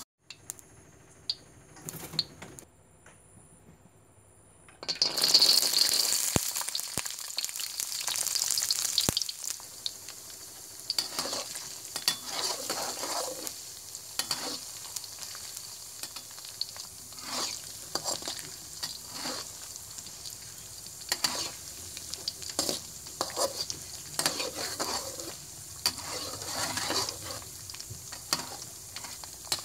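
Skinned peanuts hit hot oil in a wok about five seconds in with a sudden loud sizzle. They keep frying with a steady sizzle while a perforated metal spoon stirs them, scraping now and then.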